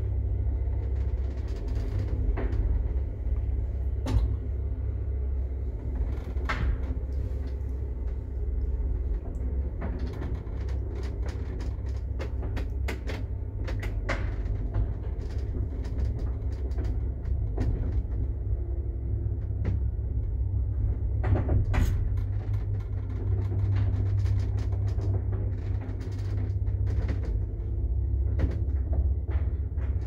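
Passenger elevator car travelling in its shaft: a steady low rumble with scattered clicks and knocks.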